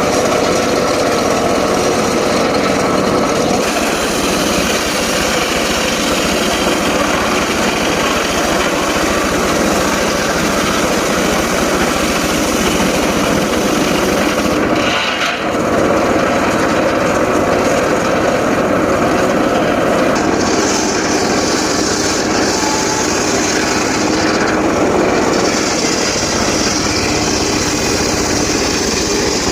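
Engine-driven saw running steadily and cutting teak wood, with a brief dip about halfway through.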